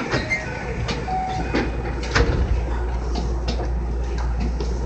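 JR West 225-5100 series electric train standing at a platform: a steady low hum under a few sharp knocks and clunks in the first half, with a few brief short tones, typical of the sliding passenger doors working at a station stop.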